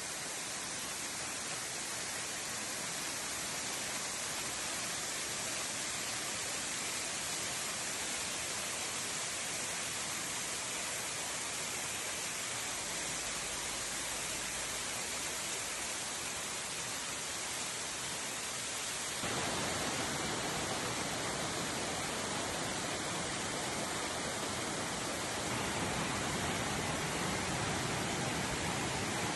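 Steady rushing of falling water from a mountain waterfall. About two-thirds of the way in the sound suddenly becomes louder and fuller.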